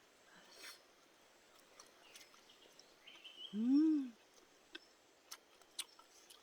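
A person's short hummed 'mmm' while eating, rising then falling in pitch, about halfway through. It sits over a quiet outdoor background with a few faint clicks.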